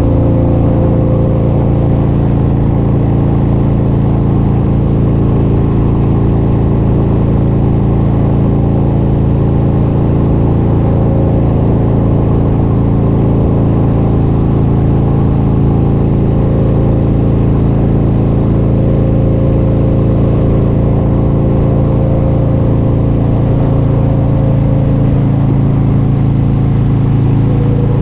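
Motorcycle engine running at steady revs while cruising, its note holding level with no gear changes or revving.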